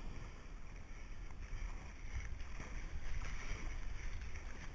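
Stand-up paddleboard being paddled: water swishing and lapping around the paddle blade and the board's nose, with a low wind rumble on the microphone.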